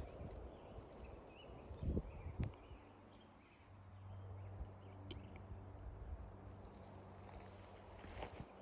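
Faint, steady high-pitched chirring of crickets, with a couple of low thumps a couple of seconds in and a low steady hum through the middle.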